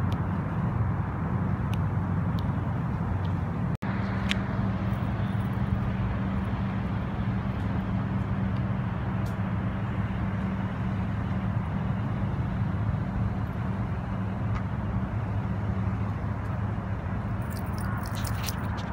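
Steady low motor drone under a rushing hiss. The sound cuts out for an instant about four seconds in, and a few faint clicks come near the end.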